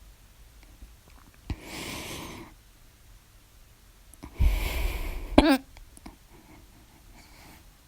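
A person hiccuping. A sharp click with a breath comes about a second and a half in, and a longer breath follows near the middle, ending in a loud, short voiced hiccup.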